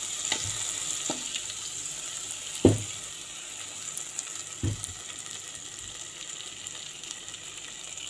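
Butter sizzling and bubbling as it melts in a hot saucepan, a steady hiss. A few short knocks sound over it, the loudest about two and a half seconds in and another about two seconds later.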